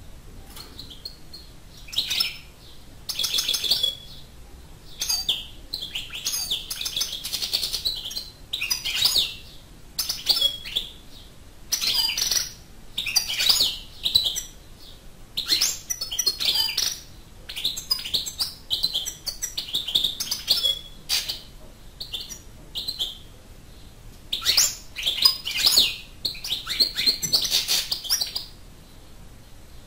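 A newly caught wild European goldfinch singing in its cage: repeated phrases of fast, high twittering, each about a second long, with short pauses between.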